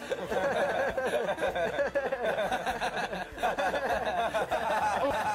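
Laughter and chuckling mixed with talk, in high, sliding voices.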